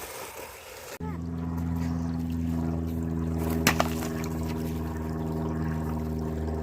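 A motor running with a steady, low, even hum that starts about a second in, with a single short click partway through.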